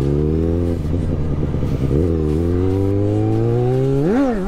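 Straight-piped Yamaha XJ6 inline-four motorcycle engine pulling under throttle, its pitch climbing steadily, then a quick rev up and back down near the end.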